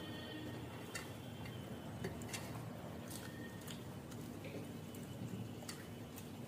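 Quiet eating sounds of two people eating rice by hand from steel plates: scattered, irregular soft clicks and smacks of fingers on the plates and of chewing mouths.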